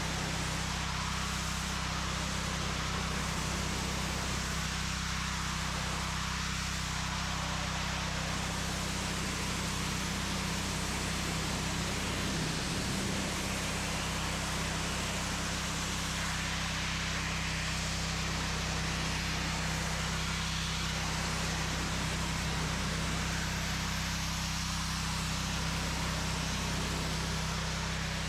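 Pressure washer running steadily: a low motor hum under the constant hiss of the water spray.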